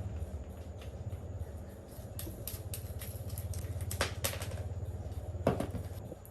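A machine running with a fast, low, even pulse, broken by several sharp metallic knocks and clicks, the loudest about two thirds of the way through.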